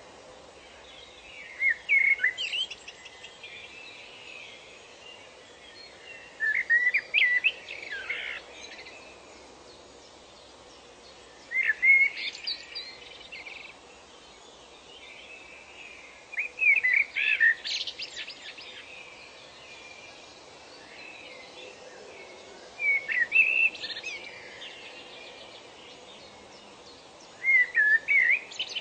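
A songbird singing short, rapid phrases of chirps and whistles, six times, about every five seconds, over a faint steady hiss.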